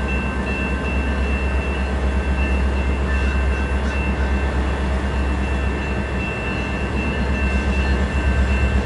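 CN diesel freight locomotives led by an EMD SD70M-2, approaching: a steady low rumble with two thin steady high tones above it.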